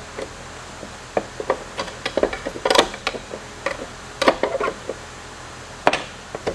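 Irregular metal clinks and knocks of tools against transmission parts as the gear and shaft are worked out of a UTV transmission case, with louder knocks about a third of the way in and near the end.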